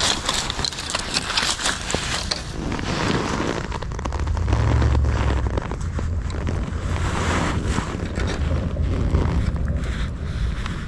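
Wind buffeting the microphone: a steady low rumble that grows stronger about four seconds in. Scattered rustling and crackling in the first couple of seconds.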